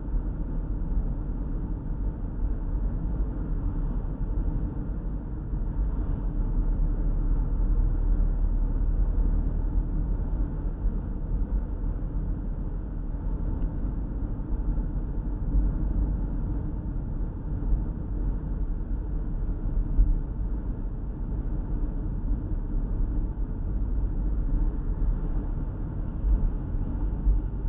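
Steady low rumble of road and engine noise inside a moving car, picked up by a windshield dashcam's microphone while driving at road speed.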